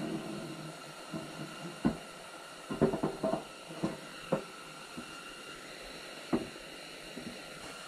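Scattered light knocks and clicks of a rubber oil hose and parts being handled against a Bridgeport milling machine's cast-iron knee and saddle, a quick cluster of them a little under halfway through. A steady faint hiss lies under them.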